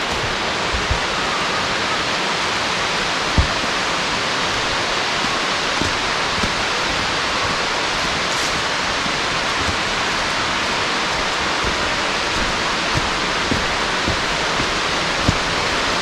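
A high waterfall's falling water, giving a steady, even rushing noise. A single brief knock comes about three seconds in.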